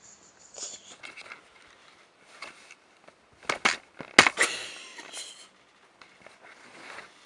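Bedsheets rustling and scuffing as a kitten scrambles and rolls on a bed, with a cluster of sharp knocks about halfway through, the loudest part.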